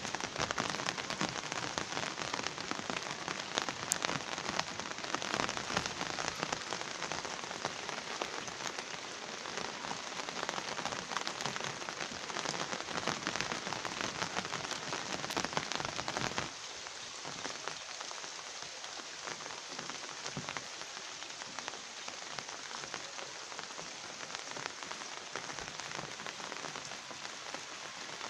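Steady rain falling on surfaces, a dense crackle of many small drops, which suddenly gets quieter about sixteen seconds in.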